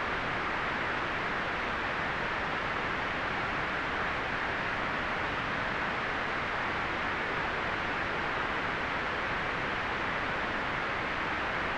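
Steady white noise: an even, unchanging hiss, strongest in the upper midrange.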